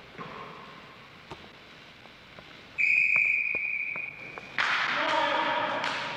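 A referee's whistle blown in one long steady blast for about a second and a half, while a basketball bounces on the gym's hardwood floor. A louder rush of noise follows about a second later and fades away.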